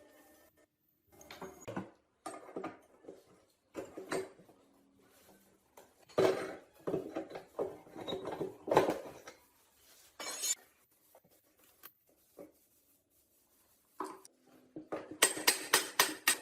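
Metal parts clinking, knocking and scraping as they are handled, in irregular bursts. A fast, even run of sharp taps, about six a second, starts near the end.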